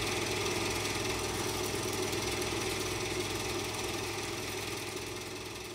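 Steady mechanical whirring of a small running motor, fading down over the last couple of seconds.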